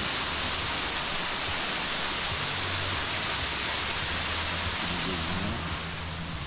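Waterfall rushing in full spate, a steady dense roar of falling water, swollen and raging after rain. It eases off slightly near the end.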